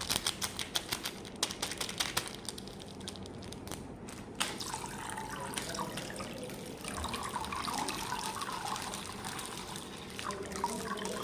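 Rapid clicking for about the first four seconds, then water trickling and splashing steadily.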